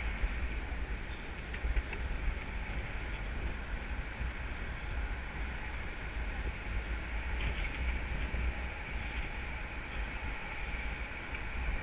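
Wind buffeting the worn camera's microphone: a steady low rumble with a hiss above it.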